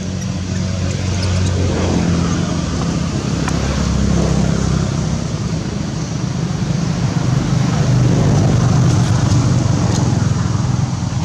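Steady low rumbling noise with no clear separate events, swelling somewhat toward the end.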